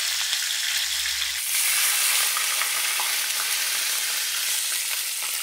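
Barracuda steaks frying in hot oil in a pan, with a steady sizzle. About a second and a half in the sizzle becomes louder and brighter, as a brown stew sauce is poured into the hot pan.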